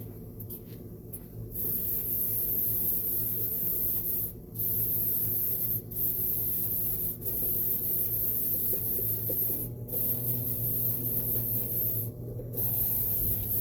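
WD-40 dry lube aerosol can spraying in a string of long hissing bursts with short breaks between them. The spray is being used as a cleaner, its pressure blasting grime off the saw parts while leaving a Teflon film.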